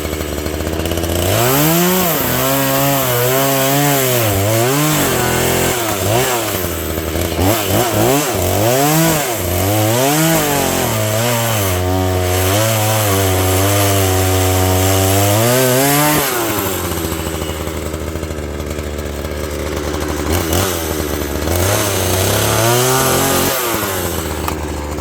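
Chainsaw cutting through an oak slab, its engine pitch rising and falling under load for about fifteen seconds, then dropping back to idle, with a couple of short revs near the end.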